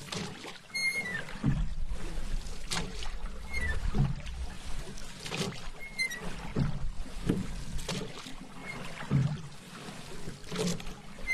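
Paddle strokes in calm water: the blade dips and pulls with a splash and gurgle, then drips, in a steady rhythm a little over a second apart.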